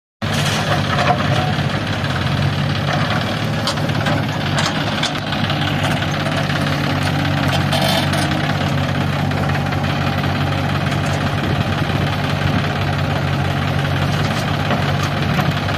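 Diesel engine of a farm tractor or backhoe loader running steadily at an even, low speed, with a few short knocks and clanks over it.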